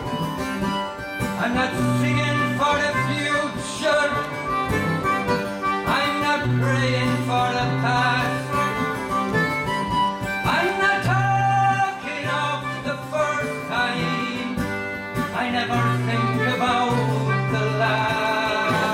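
Acoustic guitar strummed with a concertina playing the melody: an instrumental passage of a live folk song, with a repeating bass line.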